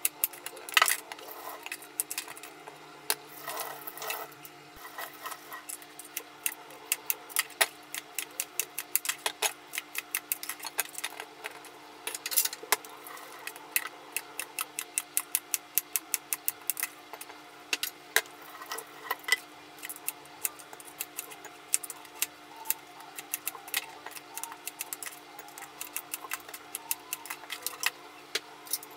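Kitchen knife chopping peeled root vegetables on a plastic cutting board: irregular runs of sharp taps as the blade strikes the board.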